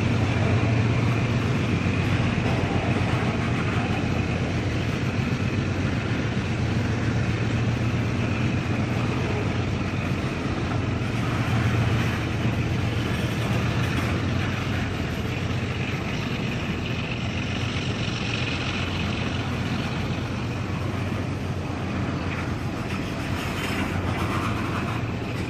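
Freight train's covered hopper cars rolling past below: a steady, continuous rumble of steel wheels on rail.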